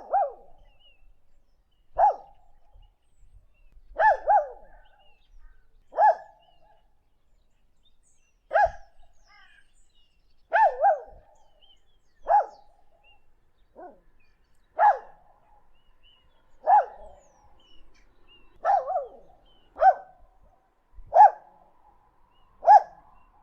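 A puppy barking, short single and double barks about every one to two seconds.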